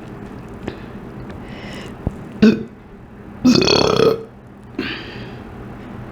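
A woman burping up gas from a liter of Diet Coke she has just drunk: a short burp about two and a half seconds in, a longer, louder one a second later, and a weaker one after it.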